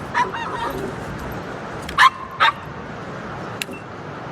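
Dog yipping and whining, then barking twice loudly about two seconds in, over a steady rushing background.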